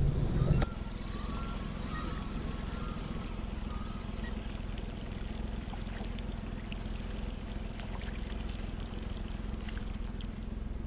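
Steady low rumble of a small fishing boat on the water, with water trickling against the hull, a little louder for the first half-second.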